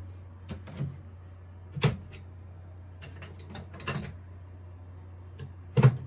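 Scattered knocks, clicks and clatters of things being handled, with the loudest thump just before the end, over a steady low hum.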